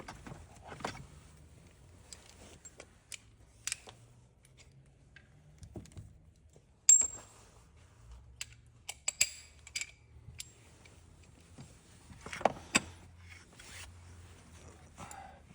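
Scattered metal clicks and clinks of hand tools and sockets being handled, with one sharp ringing clink about seven seconds in and quicker clusters of clicks later.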